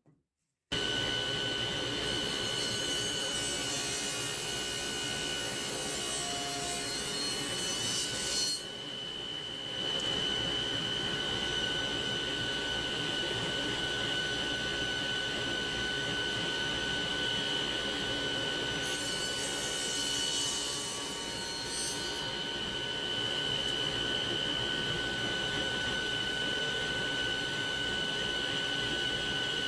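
Power saw running steadily with a constant motor whine and cutting through wood, the cutting hiss loudest in two passes, one over the first several seconds and a shorter one about two-thirds of the way through.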